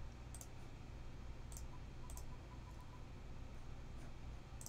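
Computer mouse clicking: about five single, sharp clicks spaced irregularly, over a faint steady low hum.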